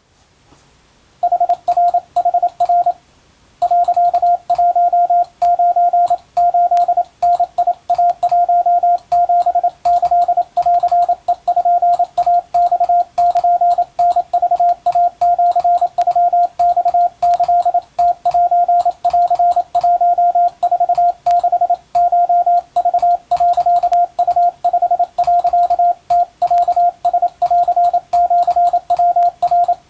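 Morse code sent as a single mid-pitched beep tone, keyed on and off into short dots and longer dashes at a steady pace. It starts about a second in and breaks off briefly shortly after.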